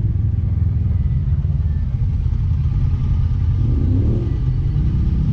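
Polaris 800 side-by-side's twin-cylinder engine idling with a steady low rumble.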